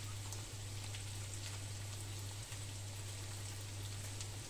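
Boiled potatoes frying in butter and olive oil in a pan: a steady sizzle with small scattered crackles. A steady low hum runs underneath.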